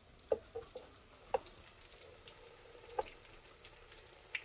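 Onion bhajis deep-frying in a pan of hot oil: a faint steady sizzle with scattered pops and crackles, a handful of them louder.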